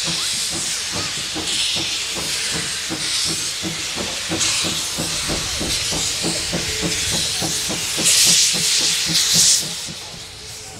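JNR Class C56 steam locomotive No. C56 160 working slowly under steam: evenly spaced exhaust beats, about three a second, over a continuous hiss of steam. Near the end a louder rush of steam rises for about a second and a half.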